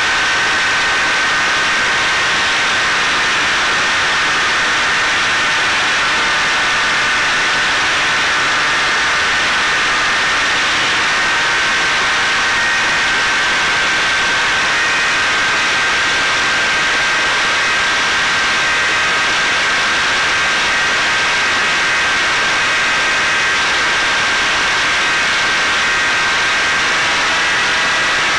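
Caipirinha fixed-wing drone's electric motor and pusher propeller in cruising flight, heard from the onboard camera: a steady high whine over loud rushing wind noise.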